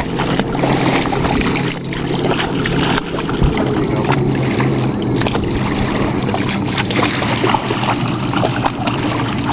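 Steady wind noise on the microphone with a low steady hum underneath, and water splashing as a large dog wades in the shallows.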